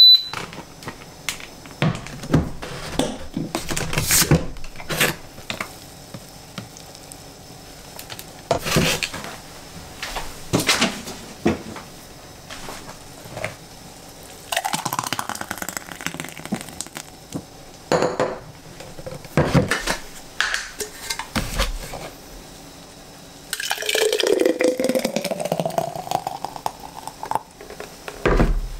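Clinks and knocks of a glass blender jug and its lid being handled on a kitchen counter. Then thick avocado-banana juice is poured from the jug into a tall glass about halfway through, and into a glass jar near the end, the pour rising in pitch as the jar fills.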